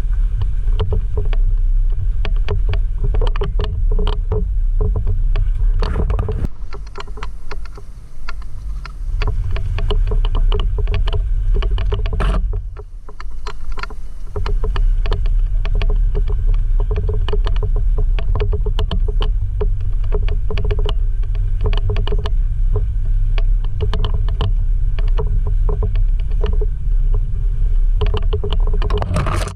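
Jeep JL Rubicon driving a rough off-road trail: a steady low rumble with frequent knocks and rattles. The sound dips briefly about halfway through.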